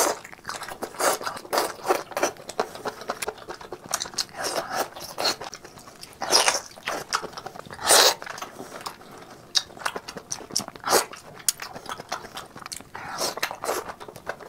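Close-miked wet chewing and mouth sounds of someone eating squid coated in chili oil: irregular smacks and crackles, with louder bites about six and eight seconds in.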